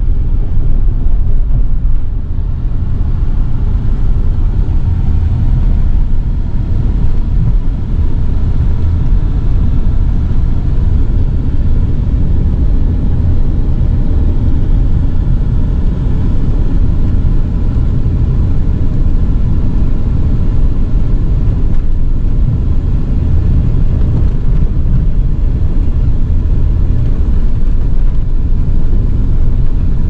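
Steady, loud low rumble of a vehicle in motion.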